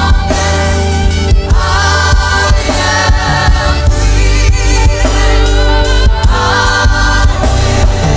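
Gospel worship music: a choir singing wordless or unclear sustained lines over a band with heavy bass and drums.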